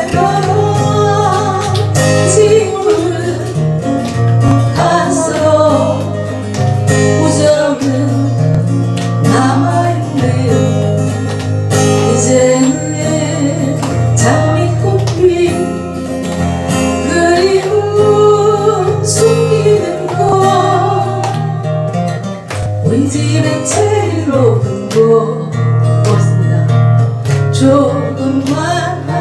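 A song performed with acoustic guitar accompaniment, with a singer's voice carrying the melody over steady bass notes.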